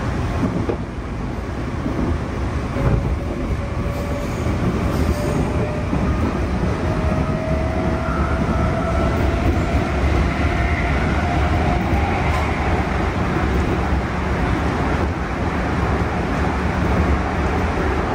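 Running sound inside a JR East 211 series electric multiple unit: a steady rumble of wheels on rail, with a thin motor whine slowly rising in pitch through the first dozen seconds as the train gathers speed.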